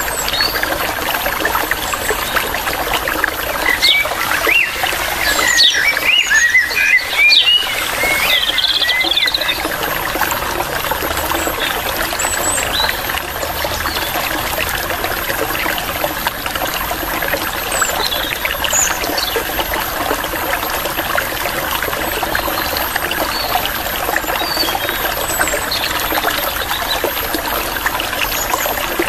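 Water trickling steadily, with small birds chirping over it: a busy flurry of quick chirps around five to nine seconds in, then only a few scattered calls.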